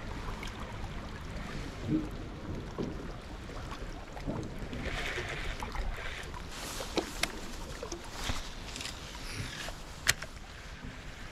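River water flowing and lapping against the rocks of the bank, with a few sharp clicks from handling the baitcasting reel, the loudest about ten seconds in.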